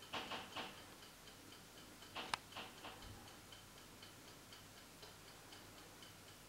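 Faint, quick, even ticking of a Charles Edward Viner double-fusee table clock's underslung lever platform escapement, with a brief rustle at the start and a single sharp click about two seconds in.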